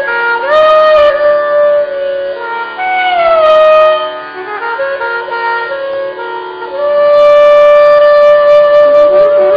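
Two saxophones, a curved one and a straight soprano, playing a melody in Indian classical style. It slides between notes, falls in a glide about three seconds in, and holds one long note over the last few seconds.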